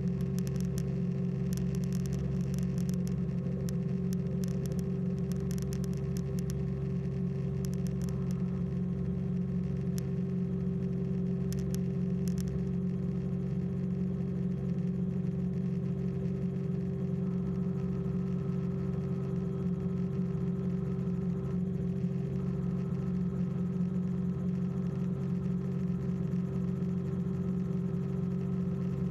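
Light aircraft's piston engine and propeller droning steadily at constant power, heard in the cockpit. There is faint crackling during the first dozen seconds.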